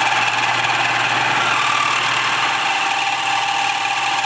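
Milling machine running a homemade spherical form cutter down into a metal block, cutting a cannonball-mold cavity a few thousandths at a time: a steady machine hum with a steady mid and high whine over the noise of the cut.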